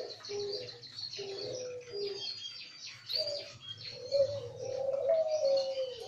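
Several caged doves (Barbary-type turtle doves and spotted doves) cooing in overlapping low, wavering phrases, with small birds chirping over them at a higher pitch.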